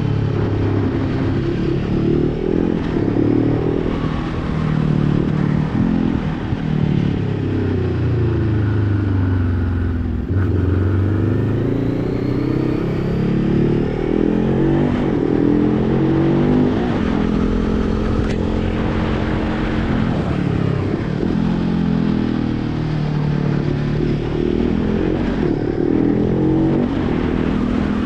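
Motorcycle engine running under way, its pitch rising and falling as the rider accelerates, changes gear and eases off, with a sudden drop in revs about ten seconds in.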